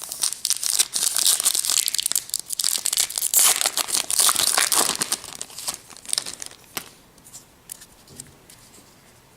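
Foil wrapper of a baseball card pack being torn open and crinkled, a dense crackling that is loudest over the first five or six seconds, then fades to light, scattered crinkles and ticks.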